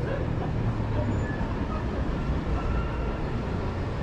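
City street traffic noise with a vehicle engine's low, steady rumble that eases about a second in.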